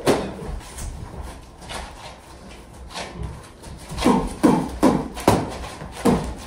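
Boxing gloves thudding as punches land on a partner's gloved guard in a padwork-style shell drill: one hit at the start, a quieter stretch, then a quick flurry of about five blows from about four seconds in.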